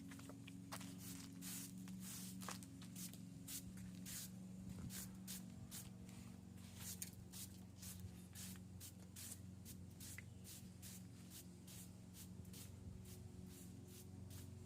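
Broom sweeping across a brick walkway, clearing loose dirt and debris: quick scratchy strokes, a few a second, over a steady low hum.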